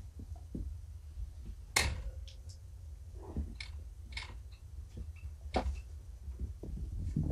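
Kittens play-fighting and pouncing on a carpeted floor among their toys: scattered soft thumps and sharp clicks, the sharpest about two seconds in and another near the middle, over a steady low hum.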